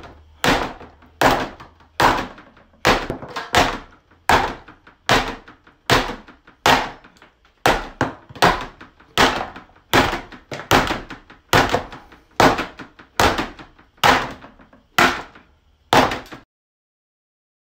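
Steady, evenly paced hammer blows on a dirt bike's front end, about one strike every 0.8 seconds, some twenty in all, each ringing briefly. They stop abruptly near the end.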